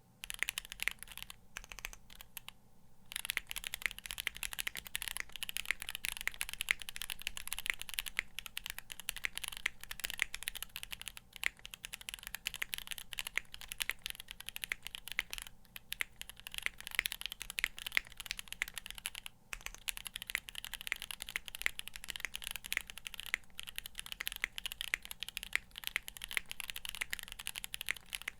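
Mechanical keyboard typing on stock, unlubricated Gateron Mini linear switches in a Vast60 with a polycarbonate plate. A few single keypresses come first, then fast continuous typing from about three seconds in.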